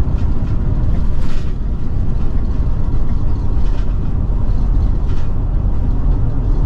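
Road and drivetrain noise inside the cab of a Ford E450 Class C motorhome driving over rough pavement: a steady low rumble, with short rattles about a second in and twice more later.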